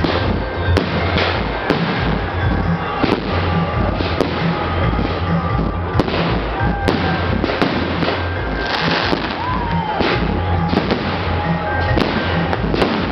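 Aerial fireworks shells bursting in an irregular string of bangs and crackles, with music playing underneath throughout.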